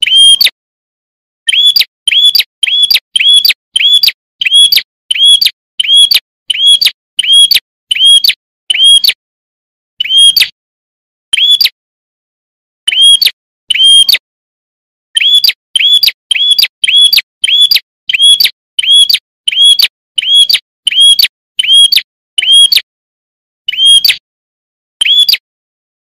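A prinia (prenjak) calling, one short sharp high note repeated about twice a second, with a few pauses of a second or so between runs.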